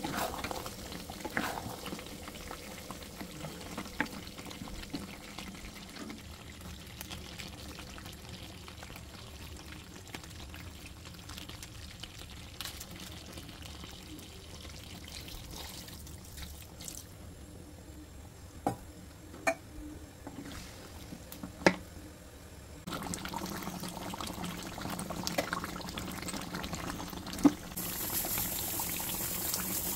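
Chicken curry cooking in a pan, a steady soft bubbling and sizzling. A few sharp clicks come around the middle, and the sizzling grows louder and hissier near the end.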